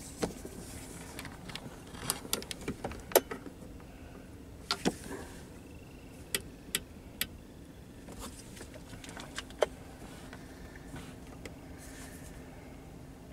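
Scattered sharp clicks and taps from the knobs and buttons of a Midland Alan 78 Plus Multi CB radio, worked by hand to switch it over to UK FM mode. There is a cluster of clicks about two to three seconds in, then single ones spread through the rest.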